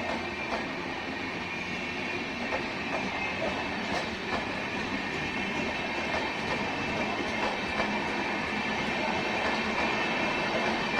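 Express train running on the rails: a steady wheel-on-rail rumble with irregular clicks of wheels over rail joints and a faint high wheel squeal, slowly growing louder.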